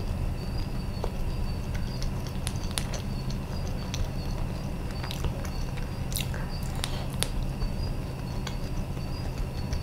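Close-up chewing of soft boiled banana, with scattered wet mouth clicks and smacks over a steady low hum.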